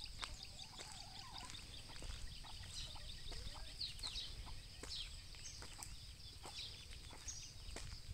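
Many small birds chirping and trilling from the fields, with a lower wavering call in the first second, over footsteps on a concrete road and a low rumble of wind on the microphone.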